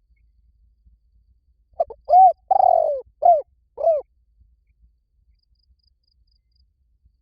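Spotted dove cooing one phrase of about five notes, starting about two seconds in: a short lead note, then arched coos with a longer one in the middle.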